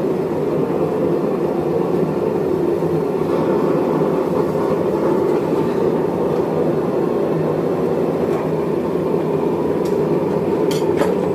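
Propane gas forge burner running with a steady rushing sound. A couple of light metal clicks come near the end, as the tongs handle the billet at the forge.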